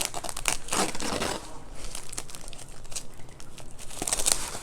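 Packaging around a shipped plant crinkling and crumpling as it is unwrapped by hand, in irregular crackling bursts that are busiest about a second in and again near the end.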